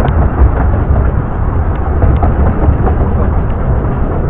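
Steady, loud rumble of a moving 15-inch gauge miniature railway train, mixed with wind buffeting the microphone.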